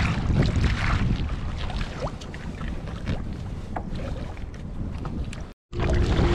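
Wind buffeting the microphone over water lapping around a kayak on choppy sea, with a few small clicks and knocks of gear being handled. The sound cuts out briefly near the end and resumes.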